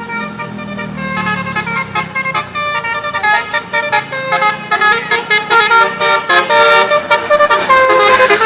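Bus's musical 'telolet' air horn playing a quick tune of short tooting notes that step up and down in pitch.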